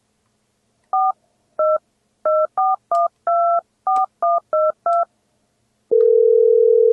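Touch-tone phone keypad dialing a ten-digit number: ten short two-tone beeps at uneven spacing, one held a little longer. Near the end a steady telephone ringing tone starts as the call goes through.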